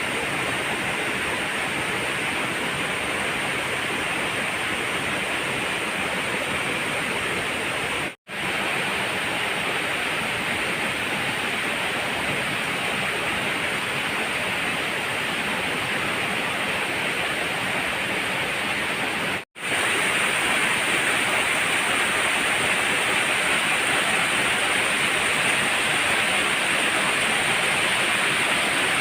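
Waterfall water rushing in a steady roar, broken twice by a moment of silence, about eight and about nineteen seconds in.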